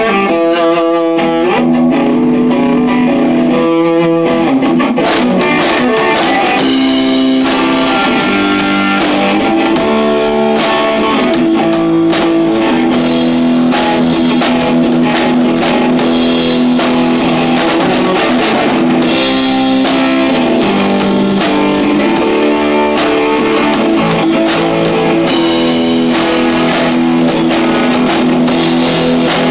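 Live rock band playing electric guitar, bass guitar and drum kit in a small room. A guitar riff opens alone, and the drums come in about five seconds in, with steady cymbal hits from then on.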